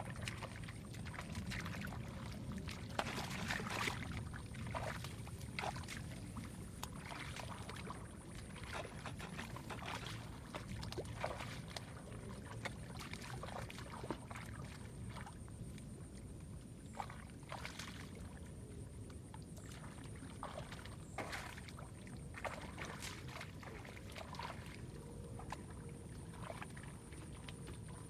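Irregular splashing and sloshing of hands working through shallow muddy water, over a steady low rumble and a thin steady high whine.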